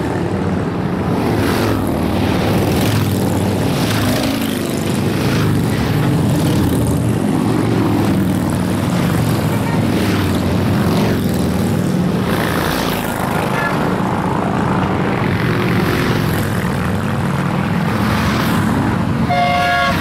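A procession of cruiser motorcycles riding past one after another, their engines a continuous loud rumble that swells as each bike goes by. A short high tone sounds near the end.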